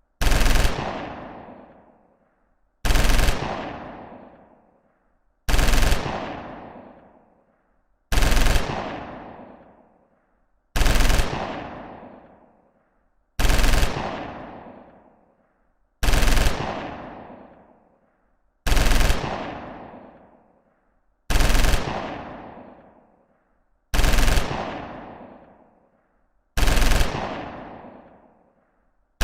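Machine gun firing short full-auto bursts about every two and a half seconds, eleven in all, each burst followed by a long echoing tail that dies away before the next.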